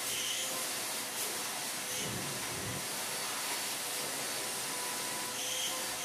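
Shop vac running steadily: an even rush of air with a faint steady whine from the motor.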